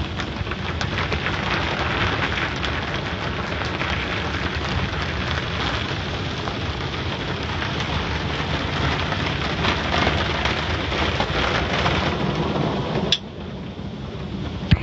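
Automatic car wash spraying water and foam onto the car's windshield and body, heard from inside the car as a dense, steady drumming patter. About thirteen seconds in, the spray suddenly cuts off with a sharp click, leaving a lower rumble, and another short click comes near the end.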